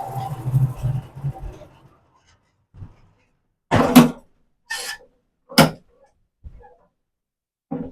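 A low sound fading out over the first two seconds, then a handful of separate sharp knocks and thuds, the loudest about four seconds in.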